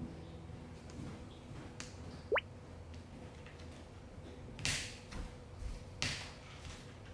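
A cat scraping at a plastic basket in two short rasping bursts in the second half. A little over two seconds in comes a brief whistle that rises quickly in pitch.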